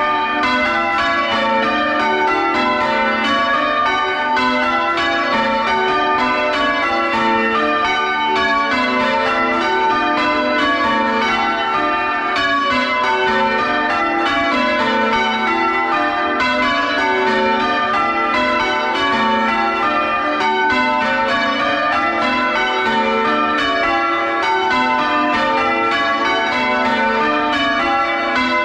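The front six bells of a church ring being change rung, heard at close range inside the bell chamber. The bells swing full-circle on their wheels and sound a rapid, even, unbroken stream of loud overlapping strikes.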